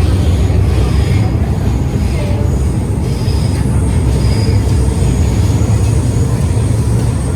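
MTR Island Line M-Train running through the underground station: a loud, steady low rumble with faint high-pitched wheel squeal above it.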